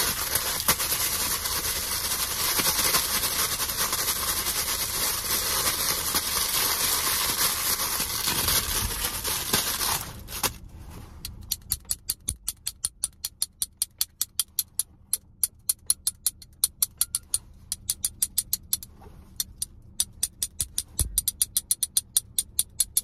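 Plastic packaging crinkled and rubbed close to the microphone in a steady dense rustle for about ten seconds. Then it stops and a small blue plastic toy clicks rapidly and rhythmically, about three to four sharp clicks a second, with a brief pause near the end.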